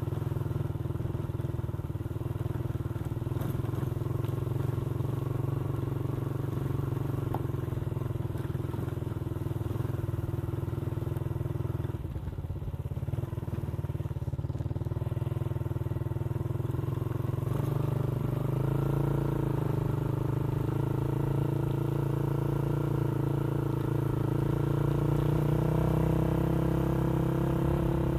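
Motorcycle engine running steadily while riding. Its note drops briefly about twelve seconds in, then the revs climb gradually toward the end.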